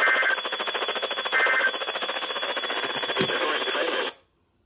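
Midland WR400 weather radio's speaker playing the end-of-message data bursts that close an Emergency Alert System weekly test: two short warbling digital tone bursts about a second and a half apart over buzzing, pulsing static from weak reception. The static cuts off suddenly near the end as the transmission ends.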